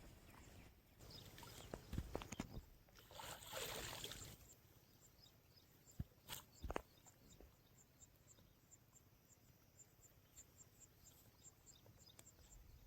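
Quiet outdoor ambience with a few scattered clicks and knocks and a brief rustling burst about three seconds in. From midway on, a faint high chirp repeats evenly about twice a second.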